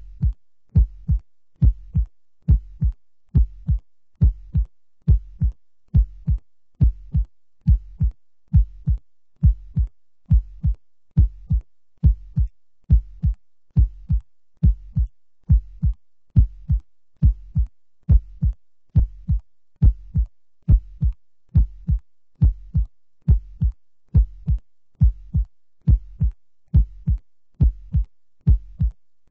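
A heartbeat sound, a steady lub-dub of paired deep thumps repeating a little over once a second.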